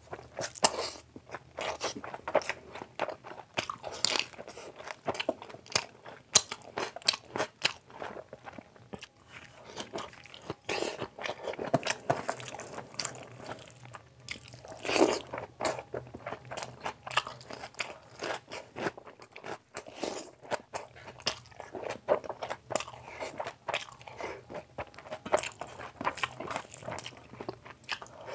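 Close-miked chewing and mouth sounds of a person eating rice and curry by hand, a dense irregular run of short sharp clicks, with fingers mixing rice on a steel plate. A louder burst comes about halfway through.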